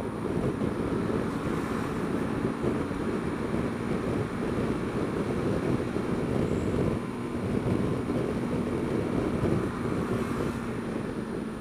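Wind rushing over the microphone of a moving Honda Dio scooter, with the scooter's small engine running steadily underneath as a low held tone.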